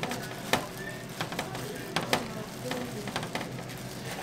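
Sliced gimbap being placed on a ceramic platter by hands in plastic gloves: a few light taps and knocks, the sharpest about half a second in, over a steady sizzling hiss of frying in the kitchen.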